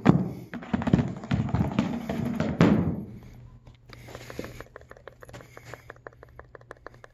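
A line of hardcover Bibles standing on end topple like dominoes onto carpet: a quick, loud run of overlapping thuds and clatters lasting about three seconds. Then a fast run of faint, evenly spaced clicks, about seven a second.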